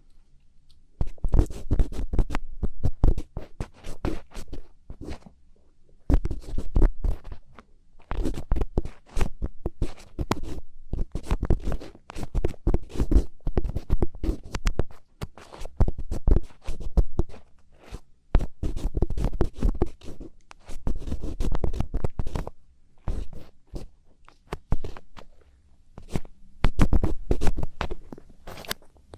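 Thin ear pick scratching and scraping in an ear-cleaning ASMR recording: dense crackling strokes in bursts of one to two seconds, with short pauses between.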